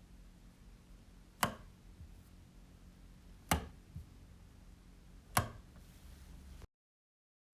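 Three sharp clicks about two seconds apart, with a fainter one shortly after the second, over a faint low hum. The sound cuts to dead silence near the end.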